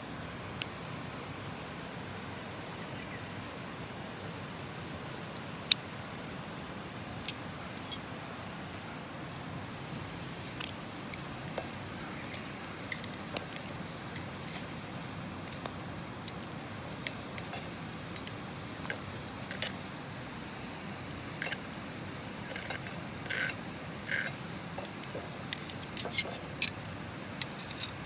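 Scattered sharp clicks and light clinks over a steady low hiss, coming more often in the last few seconds.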